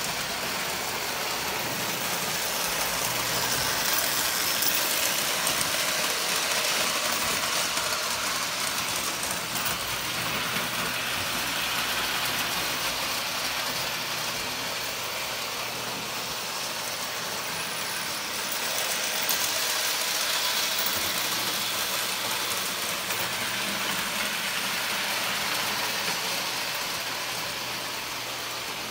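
Lionel toy train running on three-rail track: a steady whir of the electric motor and rumble of the wheels, growing louder around five seconds in and again around twenty seconds in.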